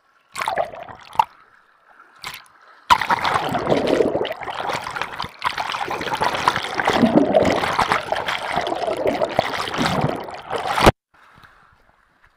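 Rushing river water splashing and gurgling right at the microphone, as if the recorder is dipped into the current. A few short splashes come first, then loud, continuous churning water from about three seconds in, which cuts off abruptly near the end.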